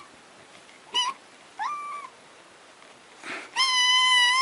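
A cat meowing: a short meow about a second in, a meow that rises in pitch a moment later, then a long, steady, high meow near the end, the loudest of the three. Demanding cries of a cat asking for something it wants.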